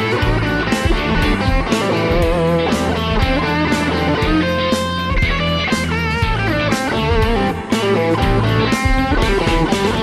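Background music led by electric guitar over a steady beat.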